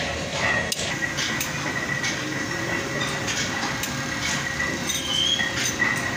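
Large spherical roller bearing being turned and swivelled by hand: its steel rollers and brass cage rattle and click against the races in an irregular metallic clatter, over a faint steady background tone.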